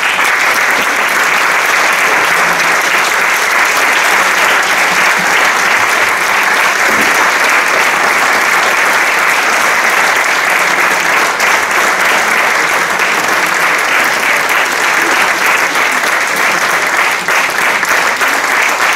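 Steady, sustained applause from a crowd of people clapping.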